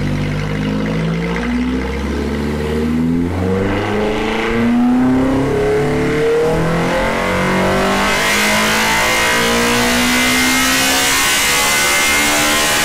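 Naturally aspirated Toyota 4A-GE inline-four with individual throttle bodies on a chassis dyno, pulling at full throttle from low revs toward about 9,000 rpm, its pitch climbing steadily throughout and its intake sound growing harsher and brighter in the upper revs.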